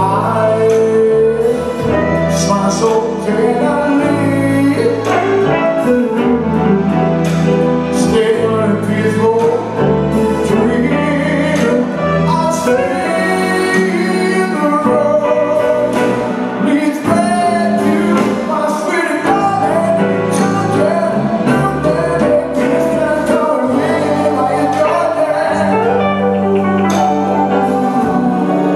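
Live band playing an upbeat pop song with a singer, over bass, drums, electric guitar and keyboards, the bass line moving note every second or two.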